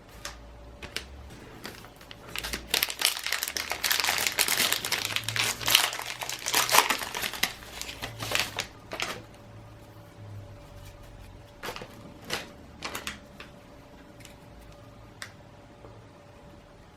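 Plastic wrapper of a trading card fat pack crinkling and crackling as it is handled and opened, densest for several seconds after the first couple of seconds, then a few separate crinkles.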